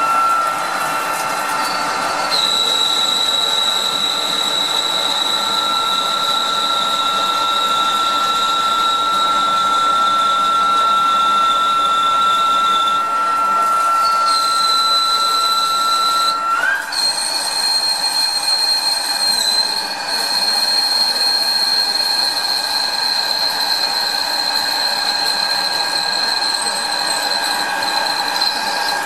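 CXF-W40 CNC turning-and-milling lathe running a cut: a steady high-pitched machine whine over the hiss of coolant spray. About two-thirds of the way through, the main whine glides up to a higher pitch and stays there.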